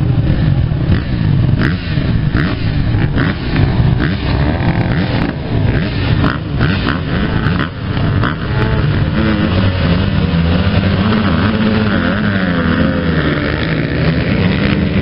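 A pack of motocross motorcycles revs on the start line, then launches and accelerates away together, with engine notes rising and falling in the second half. A few sharp ticks come about every second in the first half.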